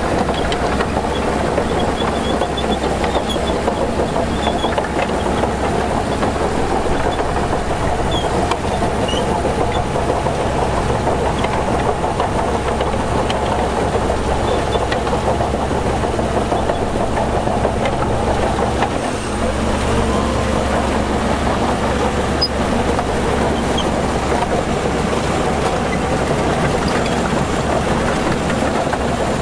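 Heavy diesel earthmoving machinery running steadily under load, the engine drone holding at a constant pitch with a brief dip about two-thirds through.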